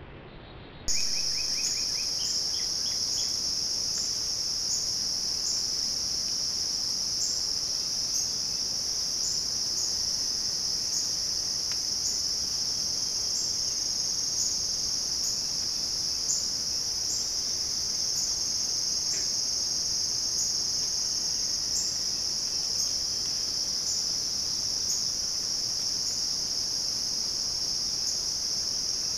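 Steady, shrill chorus of singing insects such as crickets in a summer meadow, starting abruptly about a second in and holding level throughout. A bird chirps a few times about two seconds in.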